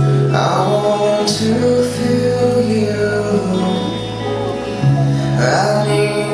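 A recorded song playing: sustained bass notes that change every few seconds under a melody, with sung vocals.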